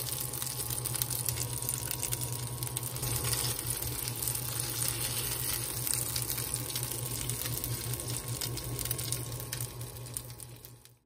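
Egg-battered beef slices (yukjeon) sizzling and crackling as they fry in oil in a pan, over a steady low hum. The sizzle fades away near the end.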